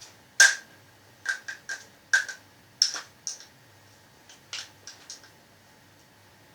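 Irregular clicks and light metallic taps of small gas blowback airsoft rifle bolt parts being handled and fitted together, the loudest about half a second in, several with a brief ring.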